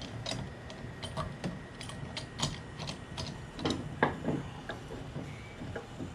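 One-handed trigger bar clamps being tightened onto a wooden stop block, a run of irregular sharp clicks as the trigger handles are squeezed. A few louder knocks come about four seconds in.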